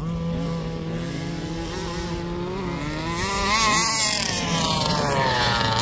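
Small two-stroke petrol engines of 1/5-scale Baja RC buggies running. One engine holds a steady note while another's revs climb a few seconds in, peak, and drop back.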